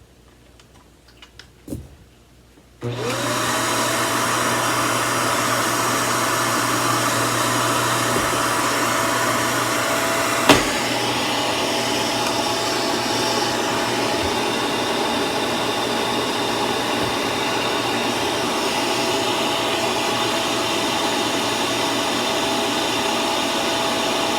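Samsung CycloneForce upright vacuum cleaner switched on: the motor starts abruptly about three seconds in, its whine rising quickly to a steady pitch, then runs steadily with loud airflow, with a single knock partway through.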